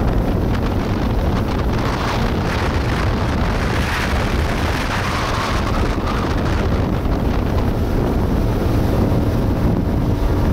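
Wind buffeting the microphone of a speedboat under way, over the steady rush of its churning wake and the run of its engine. The water hiss swells for a few seconds around the middle.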